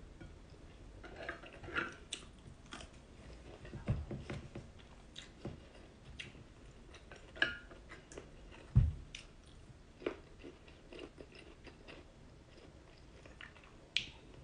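A person chewing a mouthful of fish and rice eaten by hand, with small clicks and taps of fingers picking at a plate. Two dull thumps stand out, about four and nine seconds in, the second the loudest.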